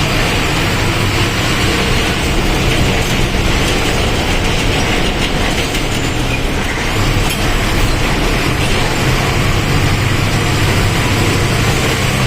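Diesel engine of a Mercedes-Benz OF-1722M Euro III bus running steadily with a low hum and mechanical rattle.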